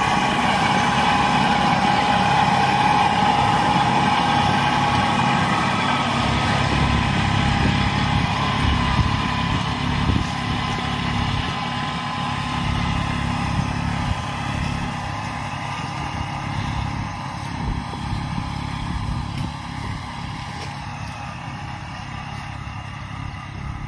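Kubota B2741 compact tractor's three-cylinder diesel engine running steadily under load while pulling a rotary tiller through the soil, growing fainter as the tractor moves away.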